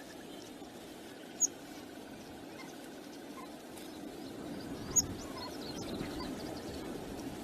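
Steady wind rumble on the microphone, with two short, sharp, high-pitched bird chirps, about a second and a half in and again about five seconds in. Fainter chirps come and go between them.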